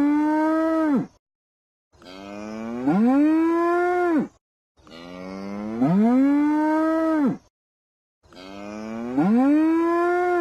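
Cow mooing: one long moo after another, about every three seconds, each rising in pitch, holding, then dropping off as it ends. The first ends about a second in and the last is cut short at the end.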